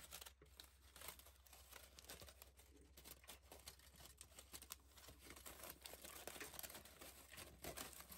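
Aluminium foil being crinkled and pulled open by small hands: faint, irregular crackling throughout.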